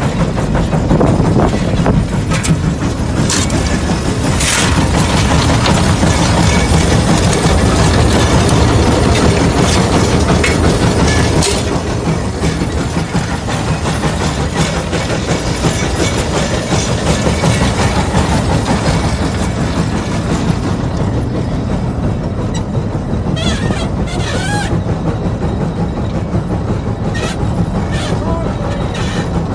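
Case 150 steam traction engine working under load as it pulls a 36-bottom plow: a steady, rapid exhaust beat with mechanical clatter, easing a little about a dozen seconds in.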